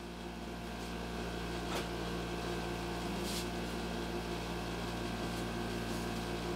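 Steady electrical hum and buzz, with a couple of faint clicks about two and three seconds in.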